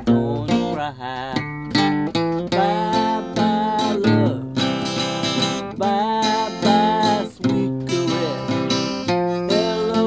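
Acoustic guitar strummed in a steady rhythm, with a man singing along over it from a few seconds in.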